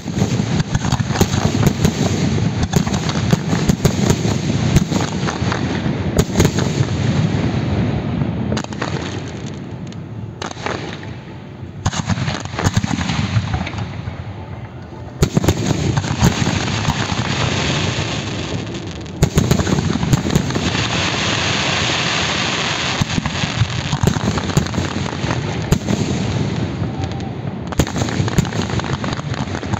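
Fireworks display: a rapid, continuous barrage of bangs and crackling from aerial shells and volleys of rising streaks. It thins out a little in the middle, then comes back loud and dense about halfway through.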